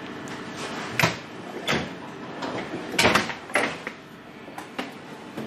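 A handful of separate knocks and clatters of metal hand tools being handled and set down, over a low steady workshop hum.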